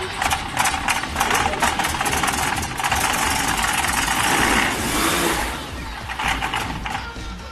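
Rotax 912 iS four-cylinder boxer engine of a Viper SD4 light aircraft being started: a run of uneven firing pulses as it catches, then running steadily and louder for a couple of seconds before dropping away about five and a half seconds in.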